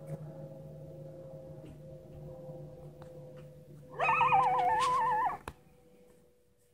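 Coyote howling: one loud, wavering, warbling call about a second and a half long, starting about four seconds in, over a steady low hum.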